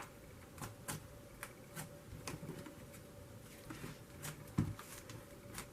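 Butter slime being squeezed and stretched by hand, making faint, irregular soft clicks and squishes over a low steady hum.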